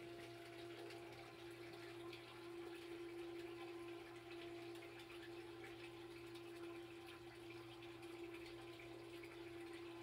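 A 3/4-horsepower submersible sump pump running with a faint, steady hum, slowed because it is air-locked by air bubbles trapped under it. Water pours into the sump pit and splashes.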